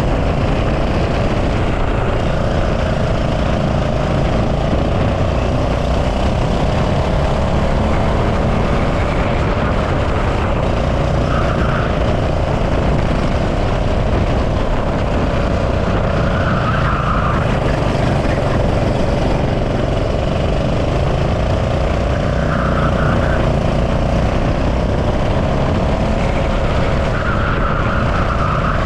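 Go-kart engine running at racing speed, its note wavering up and down, with heavy wind rumble on the driver's body-mounted camera.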